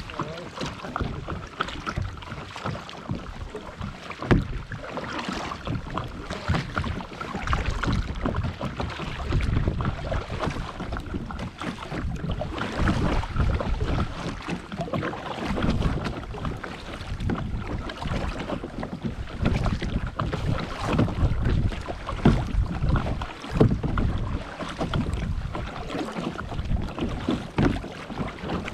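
Kayak being paddled on open water: irregular paddle strokes and water sounds, with wind buffeting the microphone.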